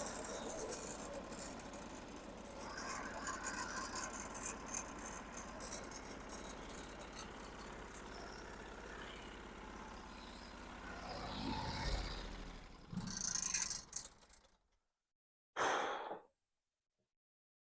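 Rattling and clicking from a Norwood HD36 bandsaw mill as its saw head is raised and moved over a slab, over a low steady hum. A rumble swells about twelve seconds in, then the sound breaks off abruptly, with one short burst after.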